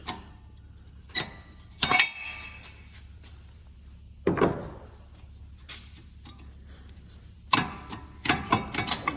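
Brake pads being worked out of the caliper bracket: a string of sharp metal clinks and knocks, a heavier clunk about four seconds in and a quick run of clinks near the end, over a steady low hum.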